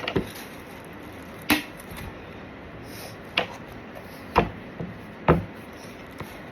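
Handling noise from an unboxing: about five sharp taps and knocks, spaced a second or so apart, the last two the loudest.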